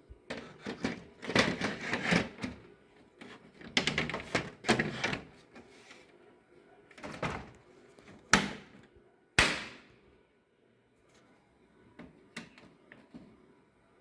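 Knocks and clatter from handling a desktop PC case and its parts: bursts of clattering in the first half, then two sharp clunks with a short ring about eight and nine seconds in, and a few light taps near the end.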